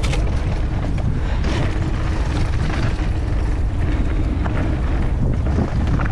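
Mountain bike rolling fast down a loose dirt trail: wind rumbling on the microphone over tyre noise, with scattered short clicks and rattles from the bike over rough ground.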